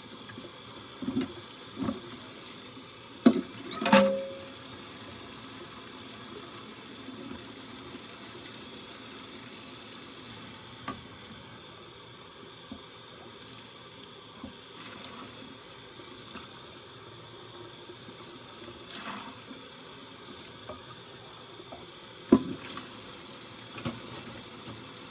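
Kitchen tap running steadily into the sink during hand dishwashing, with dishes knocking and clinking now and then. The loudest clanks come about three to four seconds in, one ringing briefly, and again near the end.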